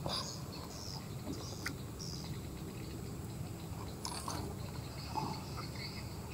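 Quiet riverbank ambience: faint short high chirps over a low steady rumble, with a few small clicks.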